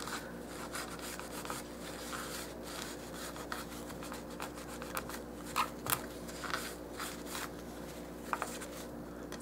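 A wad of paper towel rubbing and rustling over the Mod Podge-sealed surface of a small miniature toolbox, burnishing in oil paint, with a few light crinkles and taps. The sound is faint, over a steady low hum.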